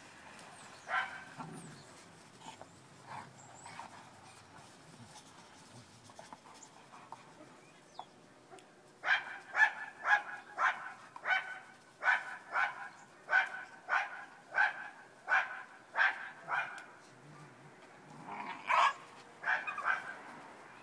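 A dog barking in play while the dogs wrestle. One bark comes about a second in, then a few quieter ones. Near the middle a run of about fifteen barks follows at roughly two a second, and a few more come near the end.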